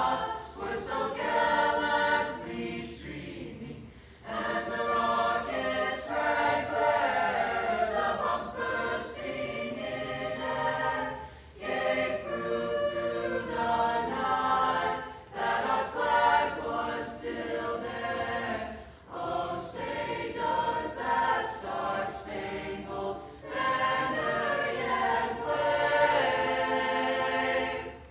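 A choir singing together in phrases, with short breaks between lines; the singing stops near the end.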